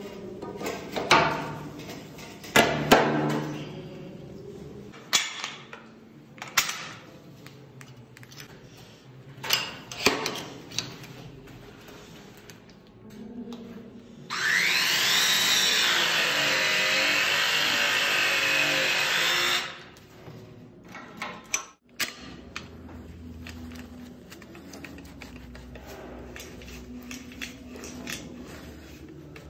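Battery-powered hydraulic pipe press tool crimping a brass press fitting onto plastic pipe: its motor whine rises in pitch as it starts, runs steadily for about five seconds, then cuts off suddenly as the press cycle ends. Before it, sharp knocks and clicks of the fitting and pipe being handled.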